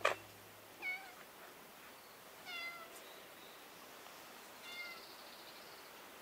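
A cat meowing three times, short falling meows about two seconds apart, after a sharp click at the very start.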